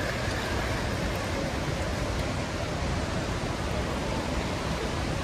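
Steady city ambience: an even rush of traffic and people moving about, with no single sound standing out.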